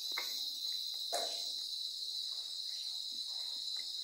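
Steady high-pitched insect trill, with a few faint clicks and one small knock about a second in from the fan blade's plastic spinner cap being turned by hand.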